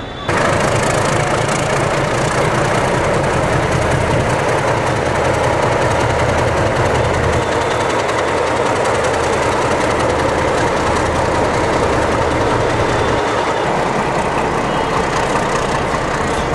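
WDS6 diesel shunting locomotive's engine running close by, a loud steady low throb that starts abruptly. The lowest rumble eases about thirteen seconds in.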